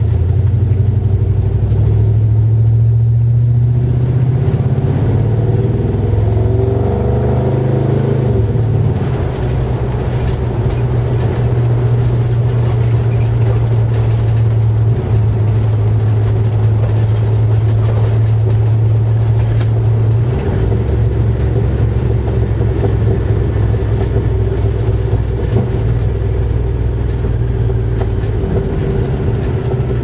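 1978 GMC Suburban's stock 350 V8 through dual glasspack mufflers, heard from inside the cabin while driving: a loud, steady low exhaust drone. The engine note shifts in pitch about seven to nine seconds in, then settles back to a steady drone.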